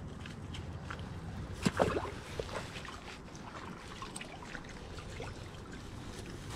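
Steady wash of flowing river water, with rustling and a few short clicks as hands handle a caught salmon, and a brief knock about two seconds in.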